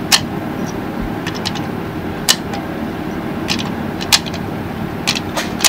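Loaded .308 Winchester cartridges being pressed one at a time into a rifle magazine: a sharp click every second or two, with fainter ticks between, over a steady low rumble.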